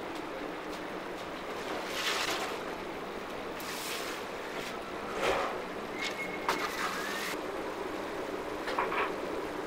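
Steady whooshing noise of a bakery's commercial oven and ventilation, with a few metal knocks and clatters and a brief thin metallic scrape about six seconds in as trays of baked egg custard tarts are pulled out of the oven.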